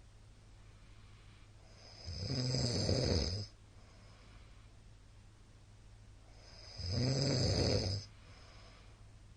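A middle-aged man snoring loudly in his sleep: two long, rasping snores about five seconds apart, with quiet breathing between them.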